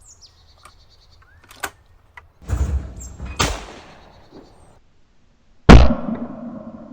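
A 12-gauge over/under shotgun fires once, loud and sharp, a little over two-thirds of the way in, and the report dies away slowly. Before it come a few light clicks and two softer bangs.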